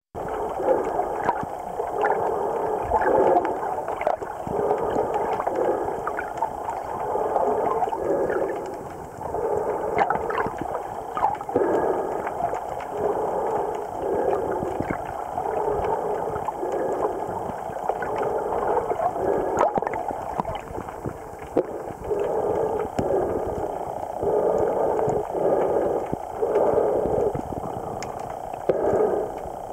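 Muffled underwater water noise picked up by a camera held under the surface: a rhythmic gurgling and sloshing about once a second, with scattered faint clicks.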